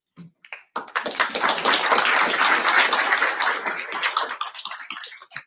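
Audience applauding: the clapping starts about a second in, swells, then fades away over about four seconds.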